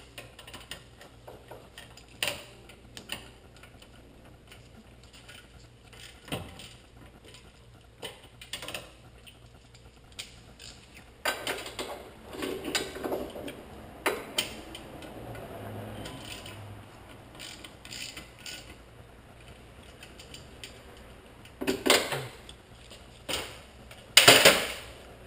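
A metal flywheel/flex plate holding tool being fitted under the car by hand: scattered metal clicks, clinks and rattles. A longer stretch of rattling comes about halfway through, and two louder clatters near the end, the last the loudest.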